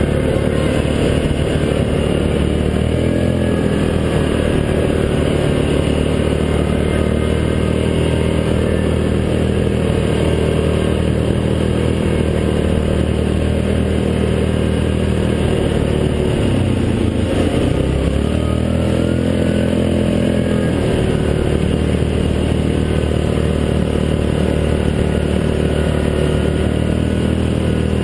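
Yamaha Grizzly 700 ATV's single-cylinder engine running under way, its pitch dropping sharply a little past halfway as the throttle eases, then climbing back up.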